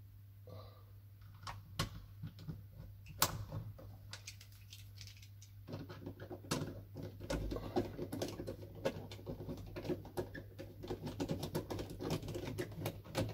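Light clicks and scraping as a countersunk screw is turned by hand through a wooden roof batten into a rivet nut in the van's roof rail. A few separate clicks come first, then from about six seconds in a rapid, continuous ticking as the screw is wound in.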